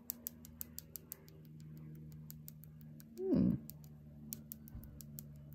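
Fingernails being tapped, making light irregular clicks, several a second at first and then sparser, to hear by their sound whether the nails are dry yet. A brief voiced sound falling in pitch comes about three seconds in, over a faint steady hum.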